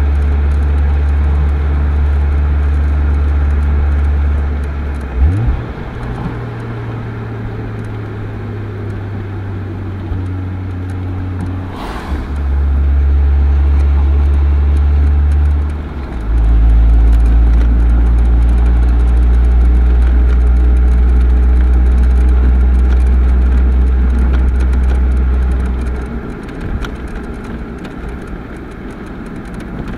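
Unmodified exhaust of a Toyota Supra 2.5GT's straight-six, driven in town and short-shifted at about 1500–1900 rpm: a deep, steady low drone under light throttle. It breaks briefly at gear changes about five, twelve and sixteen seconds in, and grows quieter when the throttle eases near the end.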